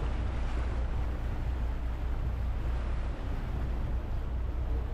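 Motorboat engine running steadily with a low rumble, with water rushing along the hull and some wind on the microphone.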